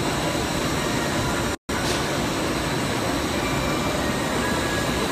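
Steady, even roar of a machinery exhibition hall's ambient din, with a brief dropout to silence about one and a half seconds in.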